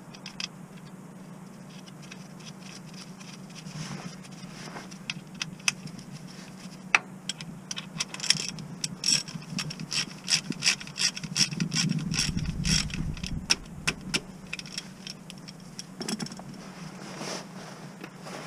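Ratchet wrench clicking on a gearbox bellhousing bolt, a few scattered clicks and then fast runs of ratcheting through the middle, with some metal knocks and scraping.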